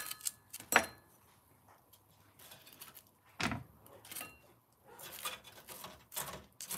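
Scattered sharp clicks and light metallic knocks of wooden chopsticks against a metal wire rack as pieces of fried chicken are picked over. The loudest click comes just under a second in, and a run of quicker clicks comes near the end.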